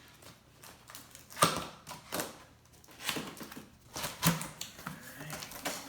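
A product box being opened by hand, its lid and packing handled with several sharp knocks and rustles; the loudest knock comes about a second and a half in.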